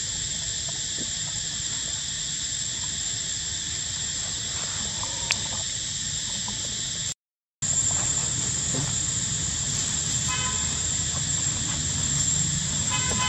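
Steady high-pitched insect drone over a low rumble, cutting out briefly a little past halfway. A short horn-like toot sounds about ten seconds in, and again at the very end.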